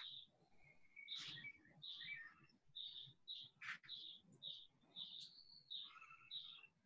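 Faint bird chirping: a short, high chirp repeated about twice a second, with a few other calls mixed in.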